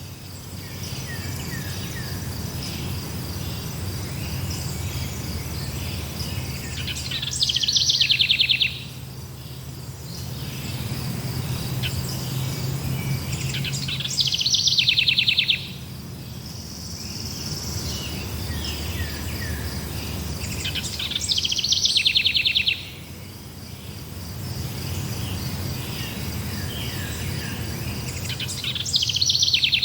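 Forest birdsong: a bird repeats a loud, rapid trill lasting about a second and a half, roughly every seven seconds. Under it runs a steady high-pitched insect chirring and a low rumble.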